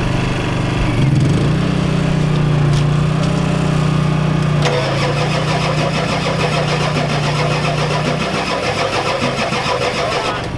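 Ford 7.3L IDI V8 diesel being cranked by the starter without catching; it won't start because fuel isn't reaching the injectors, which the owner blames on a weak injection pump. About five seconds in, a fast, even rattle joins the cranking.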